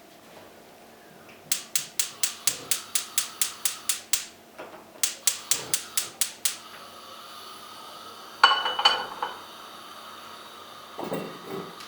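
Two runs of sharp, evenly paced clicks, about four or five a second, then a short clatter with a ringing note about eight and a half seconds in and a few soft knocks near the end.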